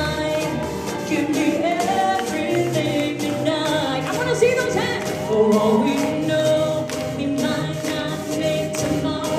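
A woman singing live into a handheld microphone over accompanying music, her amplified voice carrying a bending, held melody.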